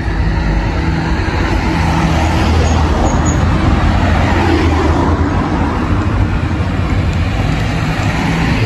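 Road traffic: a motor vehicle's engine hum and tyre noise, swelling about halfway through as it passes close by.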